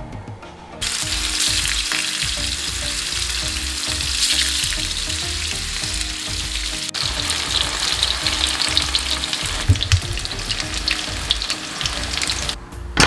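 Tofu blocks frying in hot oil in a pan: a steady sizzle with fine crackling, starting about a second in and stopping shortly before the end.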